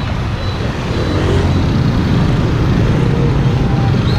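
Steady, loud road-vehicle rumble with no clear change.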